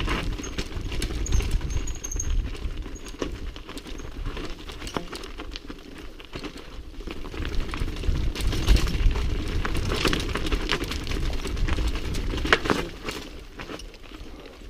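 Mountain bike riding fast down a rocky, gravelly trail: wind rumbling on the camera microphone, tyres crunching over loose stones, and the bike rattling and clacking over bumps. The noise dies down near the end as the bike slows.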